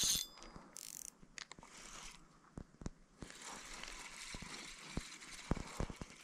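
Spinning fishing reel being wound in, its mechanism clicking irregularly, as a hooked fish is brought in.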